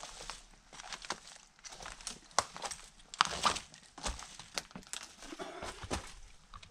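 Footsteps crunching over dry pine needles, twigs and leaf litter: an irregular run of crackling steps.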